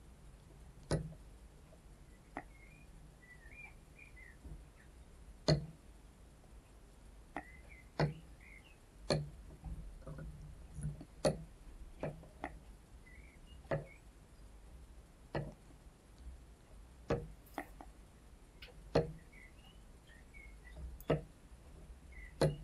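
Sharp single clicks or taps, spaced irregularly every one to three seconds, with faint high chirps between them over a low steady hum.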